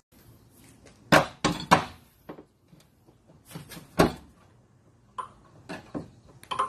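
A series of sharp clicks and knocks, a quick cluster about a second in and a single loud one about four seconds in, then lighter taps near the end, as a flat screwdriver pries at the end fitting of a rear hatch gas lift strut.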